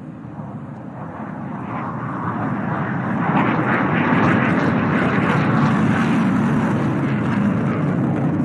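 Jet engine noise of a JF-17 Thunder, a single Klimov RD-93 turbofan, during a low aerobatic display pass. It grows louder over the first three or four seconds, then holds loud and steady.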